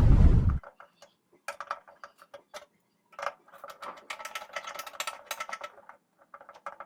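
Irregular metallic clicks and taps of hand tools and parts being worked inside an opened microwave oven during a magnetron replacement, with a short loud low rumble at the very start.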